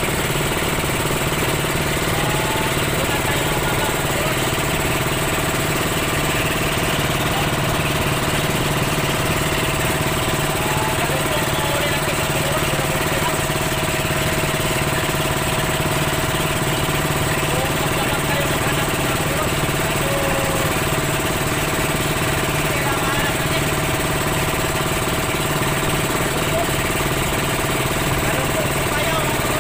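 Motor boat's engine running steadily while under way: a constant drone with no change in speed or pitch.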